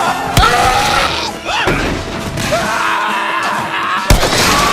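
Loud music with wavering, gliding vocal-like lines, cut by two sharp hits: one about half a second in and one near the end.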